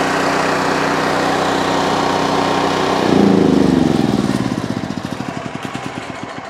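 Champion 7500-watt portable generator's single-cylinder engine running steadily, then switched off about three seconds in: its note drops and it winds down, the firing pulses slowing and fading as it coasts to a stop.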